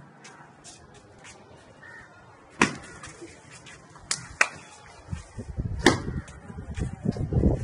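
A sheep butting its head against a person, heard as a few sharp slaps and knocks: one about two and a half seconds in, two close together around four seconds, and another near six seconds, with scuffling and shuffling noise building from about five seconds.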